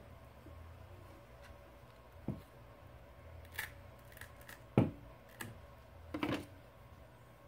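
Scattered sharp clicks and snaps of a plastic prying tool and the Samsung Galaxy S7 Edge's glass back cover as the cover is worked free of its adhesive and separated from the frame. The loudest snap comes a little before five seconds in, and a short cluster of clicks follows about a second and a half later as the loose cover is handled.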